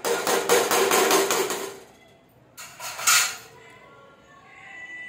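A metal spoon scraping rapidly around a karahi of cooking masala and chicken for about two seconds, then a second short clatter of metal about three seconds in.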